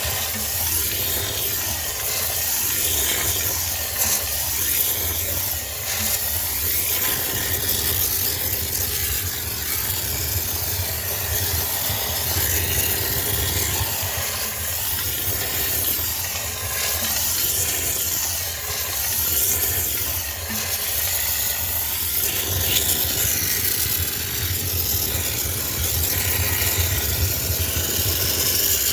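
High-pressure steam cleaner running, its steam jet hissing steadily over a low machine hum.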